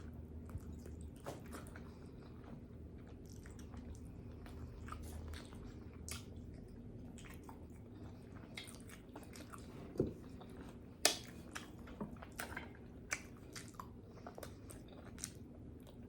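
A person chewing and smacking food close to the microphone: faint, wet mouth clicks throughout, with a few sharper ones in the second half.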